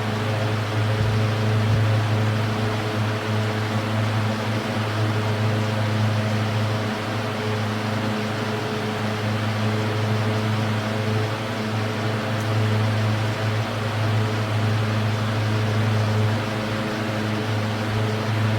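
Air-King 20-inch box fan running: a steady low electric-motor hum under the even rush of air from its blades. Not quiet at all.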